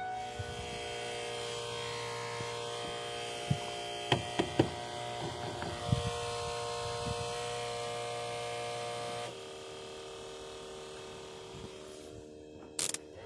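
Steady electrical hum with several sharp clicks and knocks in the middle; the hum steps down in level at about nine seconds.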